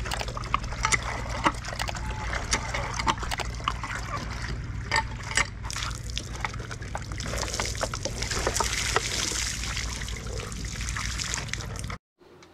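Water from a pump pouring and splashing as a person washes under it: irregular splats and trickling over a steady low hum, with the spray heavier from about seven seconds in. The sound cuts off abruptly near the end.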